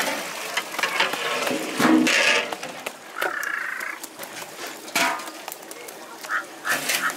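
Soaked rice tipped from wicker baskets into a big pot of boiling mutton stock for biryani: splashing and sloshing, with sharp knocks as the baskets strike the pot. Short voice-like calls break in, the loudest about two seconds in.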